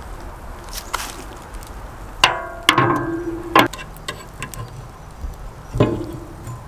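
Sharp metal clanks with a short ringing tone from the steel drum and bars of a Pit Barrel Cooker, a cluster of knocks about two to three and a half seconds in and another near the end.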